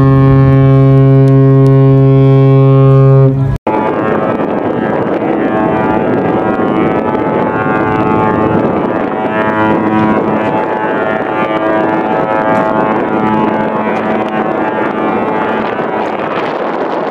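Container ship horns. The MV Ever Prima's deep, steady horn blast cuts off suddenly about three and a half seconds in. Then the OOCL Asia's horn sounds several sustained tones that come and go over a noisy background.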